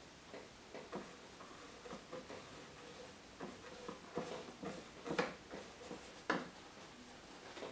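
Bristle brush working oil paint onto a canvas, a run of soft, irregular scrubbing and dabbing strokes, with two louder taps about a second apart a little past the middle.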